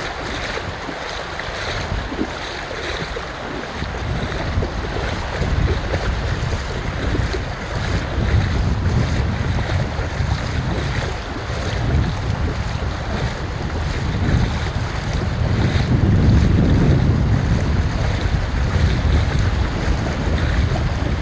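Ocean surf washing onto a beach, with wind buffeting the microphone in uneven low rumbles that grow stronger a few seconds in.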